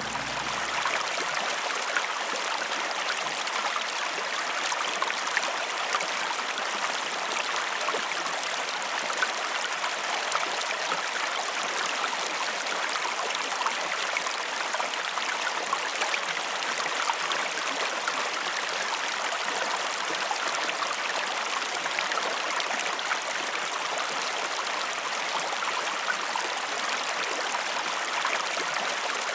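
Shallow mountain stream flowing over rocks and pebbles: a steady, even rush of water with small splashes throughout.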